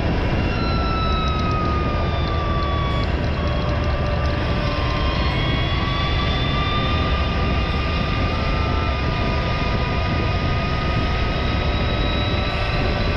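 Motorcycle riding at steady speed, heard on its onboard camera: constant wind and road noise with the drive running underneath, and a faint whine that slides down in pitch in the first few seconds and then slowly rises again.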